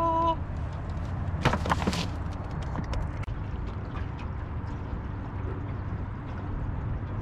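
A man's short, drawn-out vocal exclamation that breaks off just after the start, then a quick cluster of sharp knocks and rattles about a second and a half in, over a steady low rumble on an open boat.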